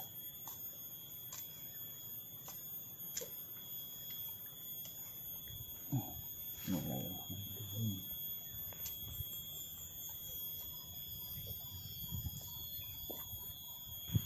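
Soft, scattered scrapes and knocks of a short blade digging into soil to plant water spinach cuttings, a few low thumps about halfway through, over a steady high-pitched drone typical of forest insects.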